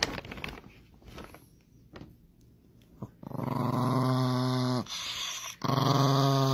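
A small dog growling in two long, steady growls, the first starting a little after three seconds in and the second about two seconds later, each dropping in pitch as it ends.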